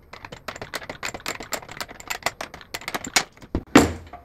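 Ratchet wrench clicking in quick, irregular runs as the bolt on a sewing-machine servo motor mount is tightened to set the belt tension, ending in a louder scrape or knock near the end.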